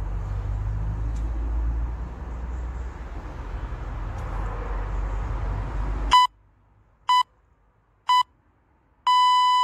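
Low rumbling background noise cuts off abruptly about six seconds in. An interval timer then counts down: three short electronic beeps about a second apart, then one longer beep that marks the change to the next exercise interval.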